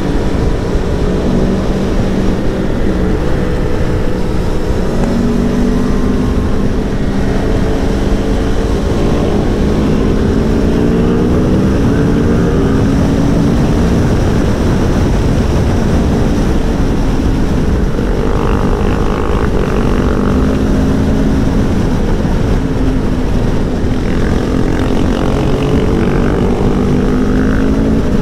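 Aprilia Tuono V4 1100 Factory's V4 engine accelerating hard, its note climbing and dropping back several times as it goes up through the gears, under heavy wind rush on the microphone.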